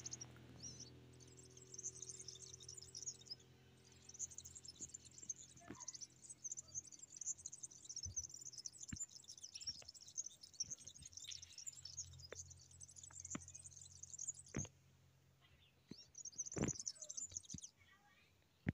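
Small birds chirping in a rapid, continuous high twitter that stops about fifteen seconds in and briefly returns near the end, with a faint low hum and a few sharp clicks.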